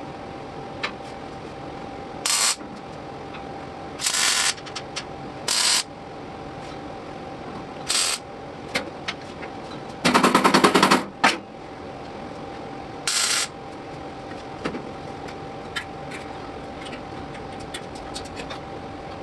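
Welder laying a series of short tack welds on old body sheet metal, with six crackling bursts. The longest burst, about a second long, comes near the middle.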